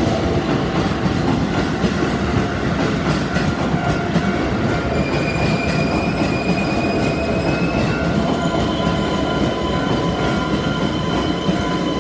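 Electric commuter train rolling past at a level crossing, its wheels clattering over the rail joints. A thin high wheel squeal comes in about halfway through and rises in pitch toward the end.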